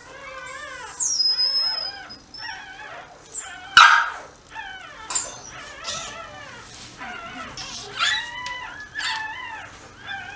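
Dachshunds whimpering: many short, high squealing calls that rise and fall and overlap at times. There is a sharp knock about four seconds in.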